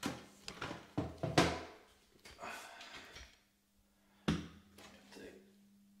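Handling knocks and bumps as a camera is picked up and repositioned: a cluster of knocks in the first second and a half, the loudest about a second and a half in, and one more sharp knock a little after four seconds.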